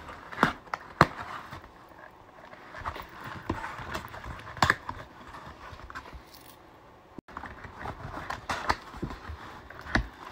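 Cardboard Panini sticker collector's box being handled and opened: sharp taps and knocks on the cardboard over scraping and rustling, with the loudest clicks about half a second and a second in and again near the end.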